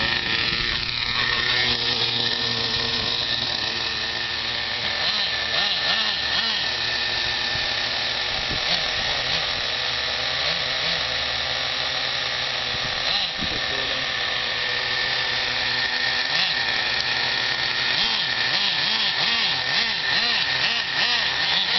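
Small nitro glow engines of RC stadium trucks idling, a steady high-pitched buzz.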